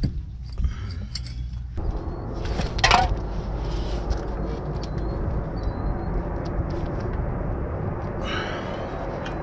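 Short bursts of metal scraping and clicking at a car's rear wheel hub as the axle shaft is worked loose, loudest about three seconds in and again near the end. Under them runs a steady low rumble that sets in about two seconds in.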